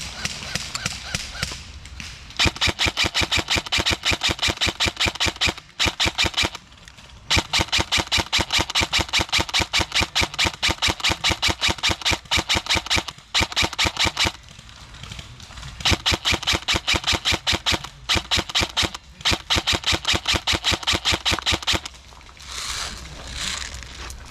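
Airsoft gun firing on full auto in several long bursts of rapid, evenly spaced shots, with short pauses between bursts.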